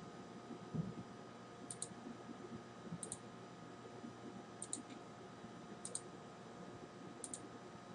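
Faint computer mouse clicks: five quick double ticks a second or more apart, as menu settings are picked. A soft low thump comes about a second in.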